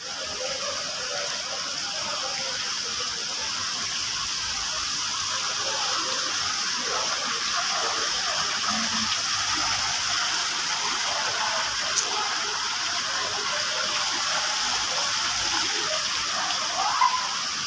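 Water pouring in thin streams down an artificial rock wall fountain into its basin: a steady splashing rush.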